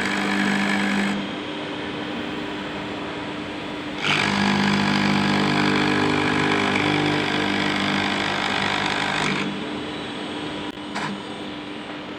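CNC milling machine's spindle running and cutting acrylic. The cutting noise drops about a second in, rises again around four seconds in and eases off again after about nine seconds, with a couple of short clicks near the end.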